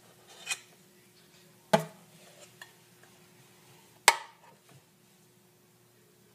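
A metal spoon knocking and scraping against a stainless steel mixing bowl and a metal muffin tin while batter is scooped out: a handful of scattered clinks, the two loudest about two and four seconds in.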